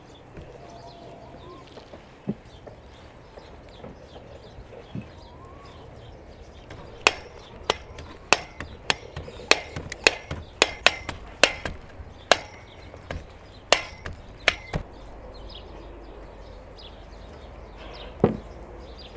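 A run of sharp knocks against a wooden cutting board, about two a second for some eight seconds, then one more near the end, over faint birdsong.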